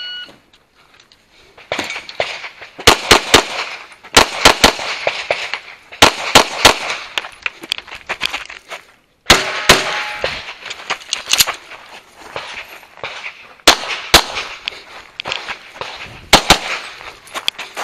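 A semi-automatic pistol with a red-dot sight fired in quick strings of two or three shots, with gaps of one to three seconds between strings.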